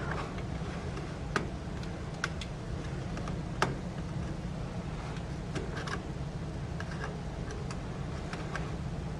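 Quiet classroom room tone: a steady low hum with scattered light clicks and taps from pencils and desks, the sharpest about a second and a half and three and a half seconds in.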